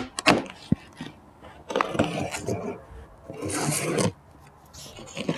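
Small knife slicing through packing tape and cardboard on a large shipping box: a few clicks, then a series of scraping cuts, the longest and loudest one about three and a half seconds in.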